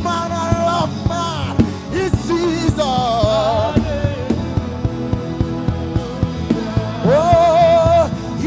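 Live gospel worship music: a singer holding long notes with vibrato over a band, with a steady drum beat and sustained keyboard chords.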